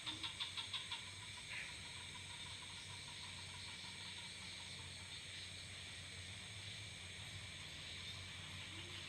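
Night animal sounds. A rapid pulsed call at about seven beats a second stops about a second in, leaving a steady high chirring of night insects.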